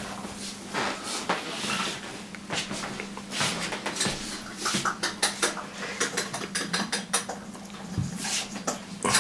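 Scattered light clicks and knocks of handling: a glass of coffee with a metal spoon standing in it being carried, over a faint steady low hum.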